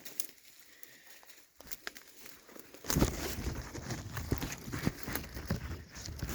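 Footsteps through forest brush: dry leaves and twigs crackling and rustling underfoot, with a few small snaps in a quieter first half and a denser run of crunching from about three seconds in.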